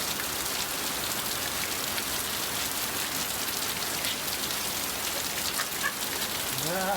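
Steady rain falling hard, a dense even hiss of drops hitting the ground and surroundings.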